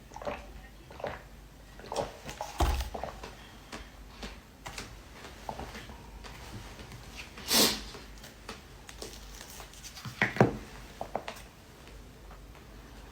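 Close-up eating sounds: scattered bites, crunches and mouth noises, the loudest a short crunch about seven and a half seconds in.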